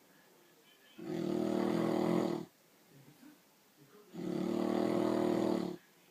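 Loud, steady snoring from a sleeper: two long snores, each about one and a half seconds with an even, low, buzzing pitch, about three seconds apart with quiet in between.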